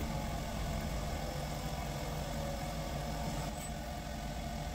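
CNC lathe running with a steady hum while machining a 4140 high-tensile steel cylinder liner from bar stock under flowing coolant, the drill boring into the spinning part.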